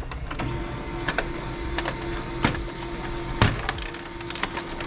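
Plastic clicks and knocks as the black front control-panel cover of a Brother MFC-J3720 inkjet printer is worked loose and handled, with the two sharpest knocks about two and a half and three and a half seconds in.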